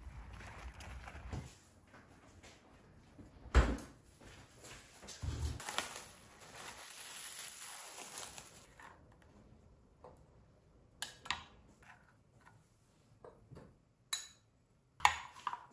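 Plastic bag crinkling as it is pulled back off a tin of homemade cherry ice cream, then a metal spoon scraping through the frozen ice cream and clinking against a glass bowl in short sharp strokes. A single thump comes about three and a half seconds in.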